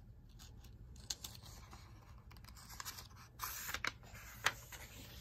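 Paper page of a book being turned by hand: faint rustling with a few light crackles and ticks, loudest about three and a half seconds in.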